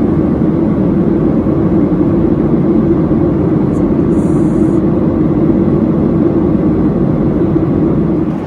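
Steady in-flight cabin noise of a Skymark Boeing 737-800 airliner: the even rush of jet engines and airflow with a steady low drone underneath.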